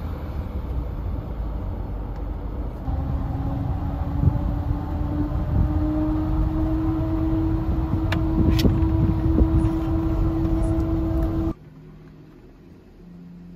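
Road and engine noise heard inside a moving camper van's cabin: a low rumble with a steady hum that steps up in pitch twice, and a few sharp clicks about eight seconds in. It cuts off suddenly near the end to quiet room tone inside the parked camper.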